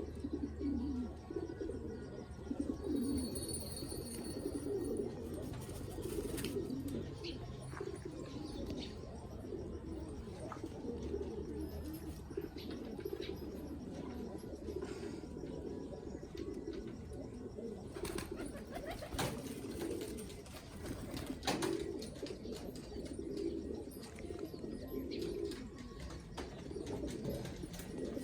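A flock of domestic pigeons cooing, many birds at once in a continuous overlapping murmur, with a few sharp clicks now and then.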